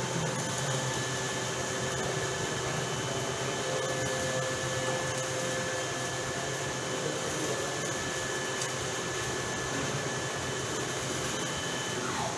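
Gantry concrete 3D printer running, its motors giving a steady whirring hum with several high, steady whines. Near the end some of the whines cut out and one falls in pitch as the machine changes its motion.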